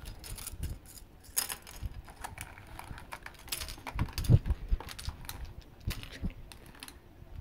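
Hard plastic pieces of broken-open Zuru Smashers toy balls clicking and rattling as they are handled on a plastic table, with a dull thump about four seconds in.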